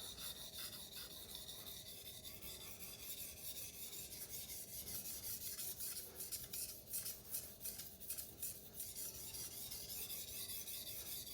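Steel knife blade stroked back and forth on an 800-grit King Deluxe waterstone: a continuous run of short, gritty rasping strokes, mostly high hiss.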